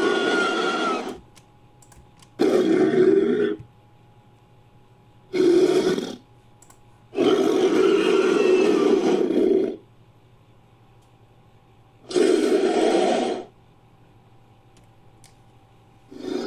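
Made-up dinosaur creature calls, a hybrid mixed from Protoceratops and Megaraptor sound effects: five separate rasping calls, each one to two and a half seconds long, with a second or two of quiet between them. The longest call comes near the middle.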